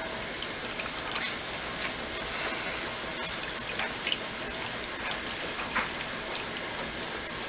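Herbal infused oil dripping and trickling into a mesh strainer and steel bowl as a cloth bag of steeped herbs is wrung out by hand, a steady patter with small irregular ticks: the oil being strained from the herbs.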